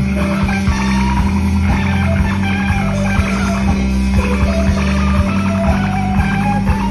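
A live band playing loud amplified music: electric guitar with gliding, bending melodic lines over a moving bass line and drums.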